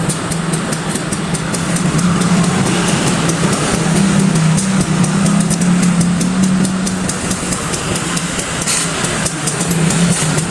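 Diesel engine of a CC 201 diesel-electric locomotive running steadily, a constant low drone.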